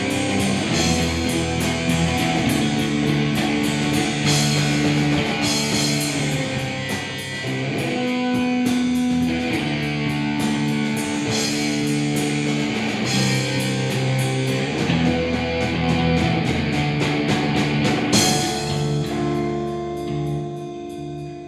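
Rock band playing: guitar chords over a steady drum-kit beat. About 18 seconds in, a cymbal-like crash lands, and the music then dies away.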